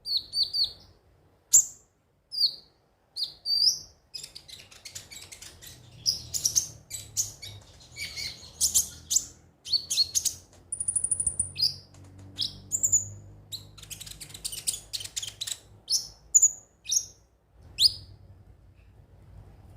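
Kolibri ninja sunbird singing: a fast run of sharp, high chirps and rapid trills, with one thin, steady whistle around the middle. The song breaks off shortly before the end.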